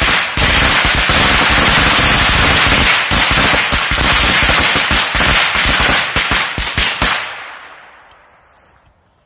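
A bundle of Korsar firecrackers with added gunpowder going off in rapid, overlapping bangs over a continuous crackling hiss. The bangs stop about seven seconds in and the hiss dies away over the next second or so.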